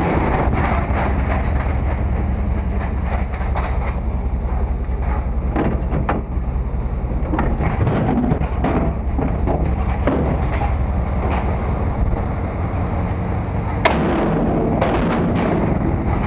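A steady low engine rumble with scattered knocks and clatter, the sharpest knock about fourteen seconds in.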